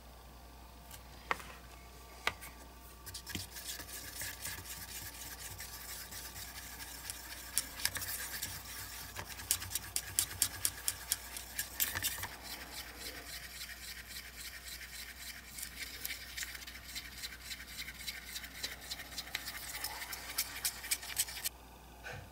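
Thin wooden stick stirring paint in a small cup, scraping and ticking rapidly against the cup's sides and bottom. Two sharp clicks come before the stirring starts, and it stops suddenly near the end.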